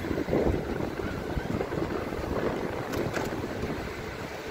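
Wind buffeting the microphone of a handlebar-mounted phone, with the road rumble of an electric bike being ridden. There are two brief sharp clicks about three seconds in.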